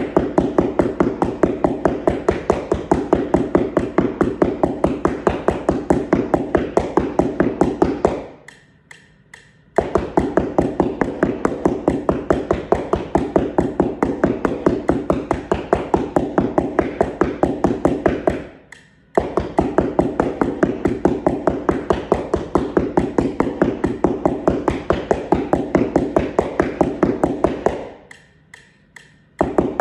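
Two keyboard mallets tapping rapidly and evenly on a paper keyboard mat over cardboard. The strokes come in long steady runs, broken by a short pause about a third of the way in, a very brief one two-thirds in, and another near the end.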